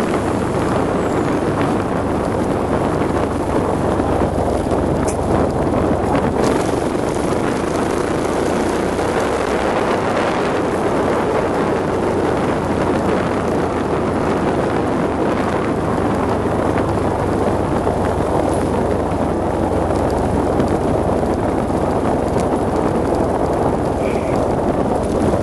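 Supermoto motorcycle engine running steadily while the bike is ridden, with wind rushing over the microphone.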